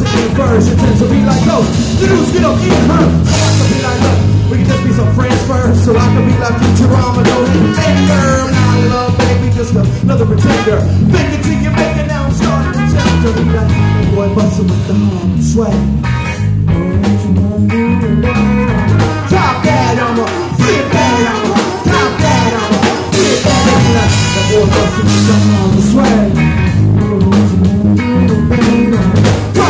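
Live band playing an upbeat, ska-tinged groove: electric guitar, bass guitar, drum kit and trumpet.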